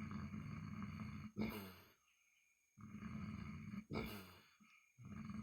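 Pig snoring in its sleep: a rattling snore about a second long, then a short snort, repeating roughly every two and a half seconds. Twice in full, with a third starting near the end.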